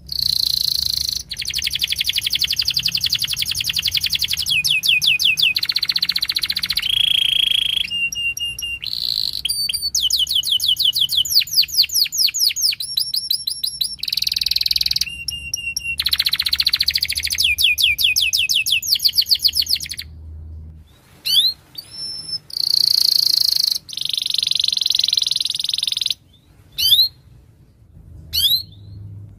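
Domestic canary singing a long, loud song of fast rolling trills and rapidly repeated chirping phrases, nearly unbroken at first, then in shorter phrases with brief pauses in the last third.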